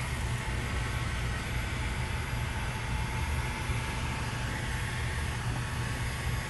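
Handheld electric heat gun running, a steady blowing noise with a low hum, as it heats vinyl stripe film to soften it for working around an edge.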